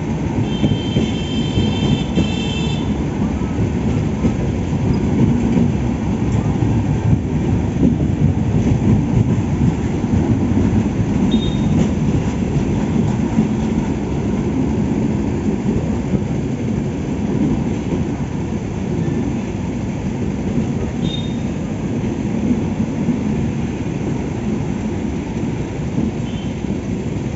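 Passenger train's LHB coaches passing at speed close by: a steady, loud rumble and clatter of wheels on the rails. A short high squeal sounds in the first few seconds, with a few brief ones later.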